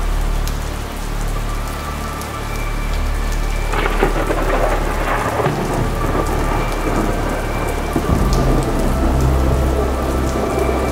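Thunderstorm: steady rain falling, with a crack of thunder about four seconds in and a deep, rolling rumble of thunder from about eight seconds on.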